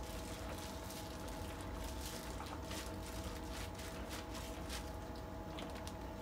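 Wet squishing and crinkling as seasoned napa cabbage kimchi is pressed and packed into a plastic container by a hand in a thin plastic glove, in a string of irregular soft crackles. A faint steady hum runs underneath.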